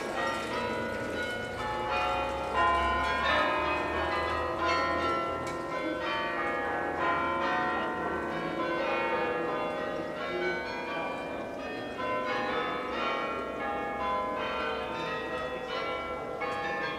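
Carillon bells in a cathedral tower ringing, many bells struck in quick succession at shifting pitches, each note ringing on under the next.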